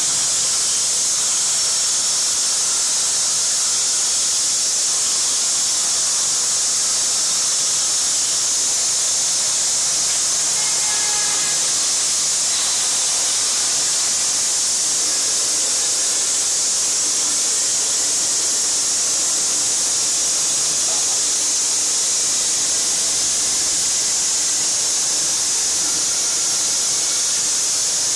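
Plasma cutter torch cutting, a loud steady high hiss that holds unchanged throughout.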